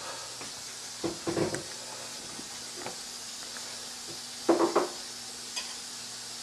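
Kitchen utensils clattering against a dish in two short clusters of knocks, the second, near the end, the louder, over a steady low hiss.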